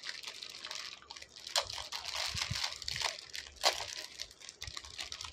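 Clear plastic bag crinkling as hands handle it and pull it out of a cardboard box, with irregular sharper crackles, the loudest about a second and a half in and again near four seconds.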